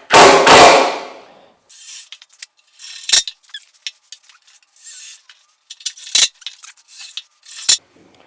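Workshop handling noise from assembling a wooden bookcase: a loud rushing burst about a second long at the start, then scraping and rubbing of wood with three sharp knocks.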